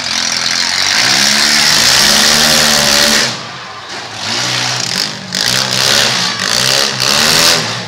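Demolition derby cars' engines revving hard in the arena, pitch rising and falling again and again, with a brief lull about three seconds in.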